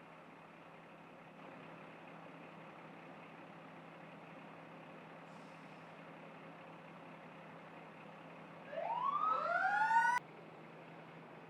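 Steady background hiss, then about nine seconds in an emergency vehicle siren winds up in a rising wail for about a second and a half and cuts off suddenly.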